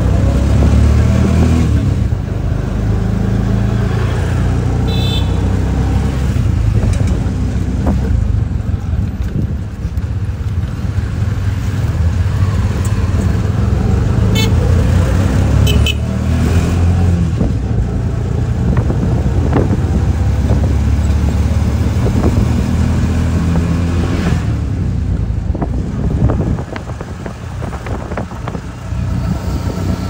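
Steady low rumble of a road vehicle's engine and tyres while riding along, with short high horn toots about five seconds in and again around 14 to 16 seconds. The rumble drops for a couple of seconds near the end.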